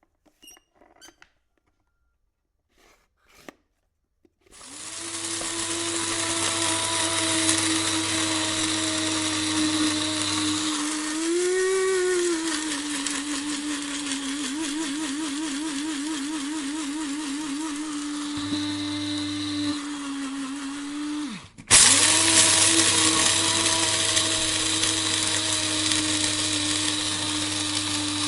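Electric coffee grinder starting up after a few faint clicks and running with a steady whine and grinding; its pitch wavers for a few seconds midway. Near the end it stops briefly, the pitch dropping, then starts again at once, a little louder.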